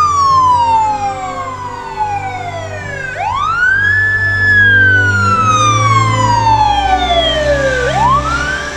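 Fire apparatus siren wailing: it climbs quickly, then falls in a long slow glide, about every five seconds, over the low rumble of heavy truck engines.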